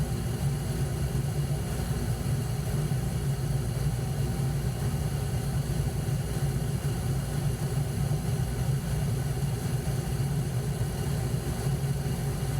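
Gas furnace running steadily with its burners lit, a constant low hum from the motor and burners that does not cut out. It is staying on now that the flame sensor has been cleaned.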